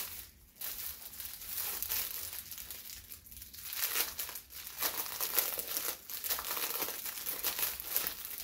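Clear plastic bag around a packaged shirt crinkling as it is handled, the crackle growing denser from about four seconds in as the hands work at the top of the bag.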